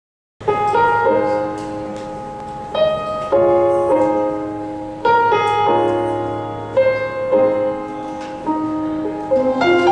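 Piano playing a slow introduction: chords struck about every one to two seconds and left to ring and fade. It starts suddenly out of silence about half a second in.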